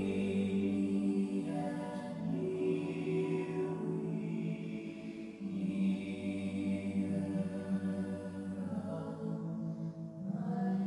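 Slow, meditative choral chant: long held sung notes that shift in pitch every couple of seconds.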